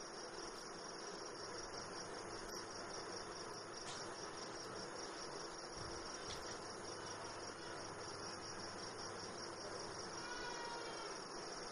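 An insect trilling steadily in the background: a high-pitched, rapid, even pulse that does not stop.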